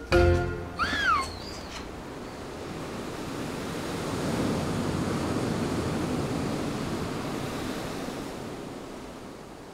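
Ocean surf washing over a rocky shore: a steady rush of waves that swells to its loudest midway and fades away near the end.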